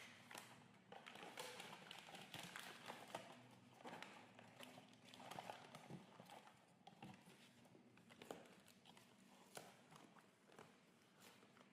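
Faint handling sounds of a blind box toy being unpacked: scattered light taps and clicks with soft rustling of packaging.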